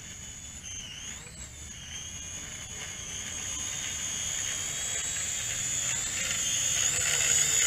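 JJRC H11WH quadcopter's motors and propellers whining in flight as it descends to land, the high whine wavering in pitch with throttle changes and growing steadily louder as it comes closer.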